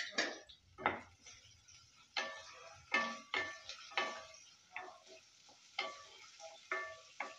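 A spatula stirring shallots, green chilli and curry leaves as they fry in coconut oil in a non-stick kadai. It scrapes and knocks against the pan about twice a second, each knock ringing briefly, over a light sizzle.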